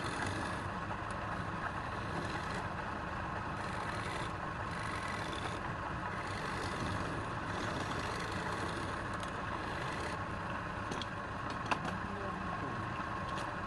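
Woodturning lathe running steadily, with a higher hiss that comes and goes every second or two as the work turns, and one sharp click near the end.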